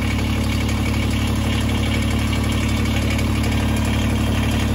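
Kubota BX23S tractor's three-cylinder diesel engine idling steadily just after start-up, run at idle so the fresh oil fills the new filter.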